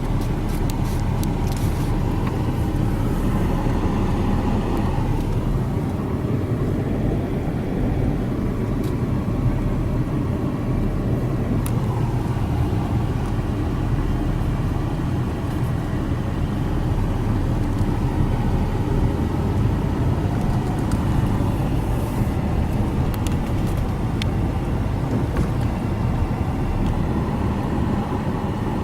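Car driving: steady engine and road rumble.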